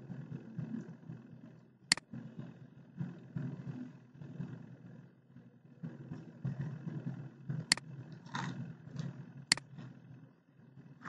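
Three sharp computer-mouse clicks, one about two seconds in and two near the end, over a low, uneven background rumble.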